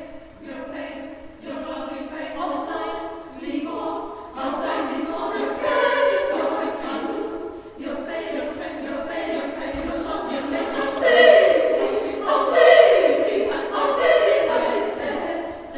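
Women's choir singing in several parts, with held notes that change every second or so and grow louder toward a peak about two-thirds of the way through.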